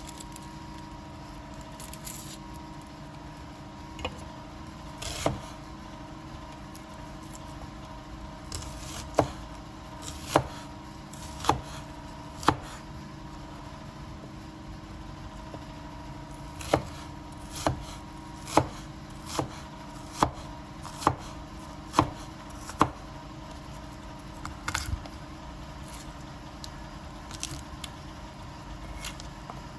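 Knife chopping food on a cutting board: sharp knocks in two slow, even runs of about one chop a second, over a steady faint hum.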